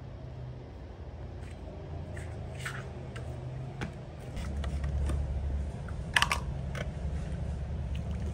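Scattered light clicks and taps, with a sharp double click about six seconds in, over a low steady rumble that comes in about four seconds in.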